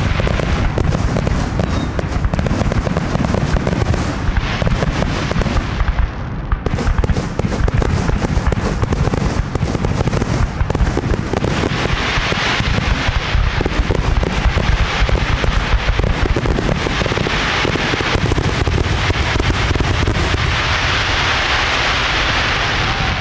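Aerial fireworks display: a rapid, continuous barrage of shell bursts with crackling.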